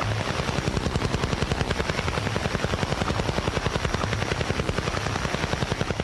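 The Russian Woodpecker, the Soviet Duga over-the-horizon radar signal, heard on a shortwave radio: a rapid pecking of about ten pulses a second, with a thumping underneath, over a hiss of radio static.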